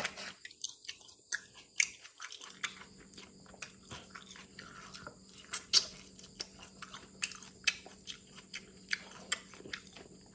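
A person chewing and biting food close to the microphone, with wet mouth sounds and irregular sharp crunchy clicks, a few of them louder about two seconds in and again around the middle.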